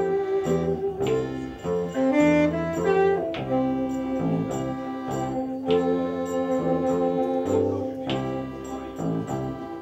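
Live band playing an instrumental passage: saxophone over accordion, bass guitar and drums, with a strike about every two and a half seconds.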